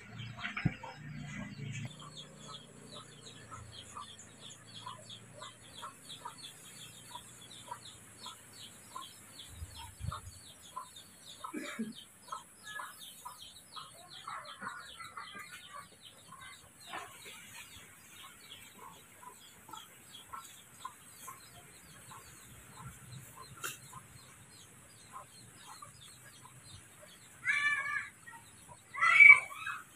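Chickens clucking, a fast run of short repeated calls, with two loud high-pitched cries near the end.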